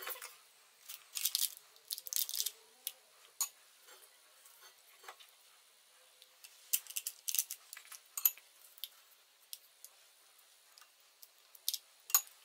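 A metal spoon scraping and clinking against a stainless steel mixing bowl and a small glass bowl of water, scooping sticky dough: scattered short scrapes and clicks in clusters, with a couple of bright clinks that ring briefly.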